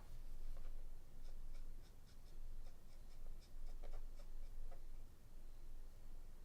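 Copic alcohol marker nib stroking across cardstock: faint, quick, repeated scratchy strokes as ink is dragged out towards the tip of each coloured shape.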